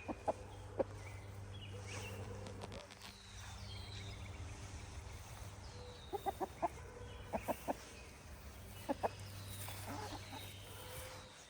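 Chickens clucking softly in short, scattered notes, most of them bunched about six to nine seconds in. Faint high bird chirps and a low steady hum lie underneath.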